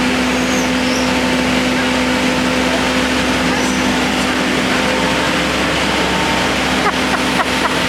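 Mini excavator's engine running steadily at constant pitch, with a steady hum from the machine as its arm works. A few light clicks near the end.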